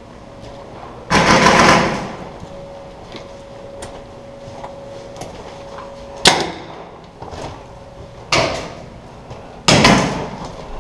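Paintball markers firing in short bursts, echoing in an indoor arena: a dense burst about a second in, a single sharp crack around six seconds, and two more short bursts near the end, over a faint steady hum.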